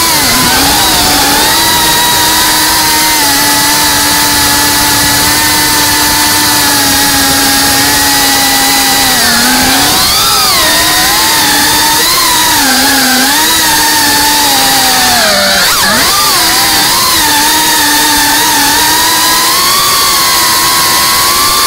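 FPV drone's motors and propellers whining loudly, the pitch dipping and rising with each throttle change, with a deep dip and sharp rise about three-quarters through.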